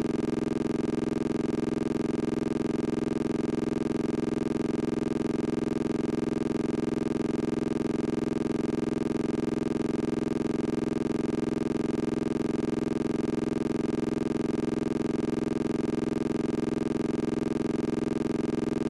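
A steady, unchanging buzzing drone made of one low tone with many overtones, holding exactly the same pitch and loudness throughout.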